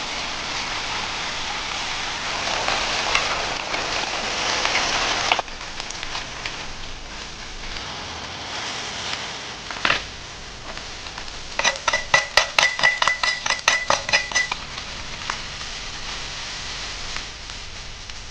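Food sizzling in hot oil in a cooking pan, stopping abruptly about five seconds in. A quieter stretch follows, then a rapid run of sharp, ringing clicks, about seven a second, lasting about three seconds.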